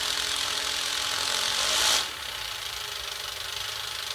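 Salvaged printer motor and plastic gear train running steadily with a grinding, ratchety whir, dropping to a quieter level about two seconds in.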